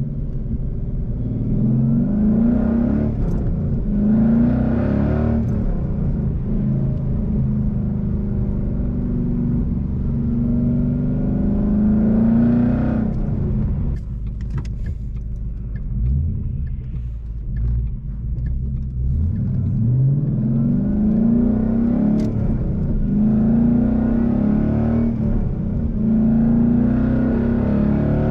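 2012 Ford Mustang Boss 302's 5.0-litre V8 through new Roush axleback mufflers, heard from the car with a window open while driving. The engine note climbs with the revs through the gears, eases off into a quieter stretch about halfway, then builds again. The exhaust tone is deep and crisp.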